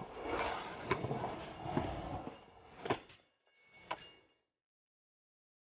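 Freestyle scooter wheels rolling and grinding over concrete, with a few sharp clacks of the deck and wheels hitting the ground; the sound cuts off abruptly a little over four seconds in.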